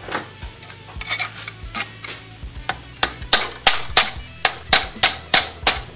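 A series of sharp taps on a piston, driving it through a band-type ring compressor into the cylinder of a T-25 Władimirec engine. The taps are scattered at first, then come louder and faster, about three a second, in the second half. Background music runs underneath.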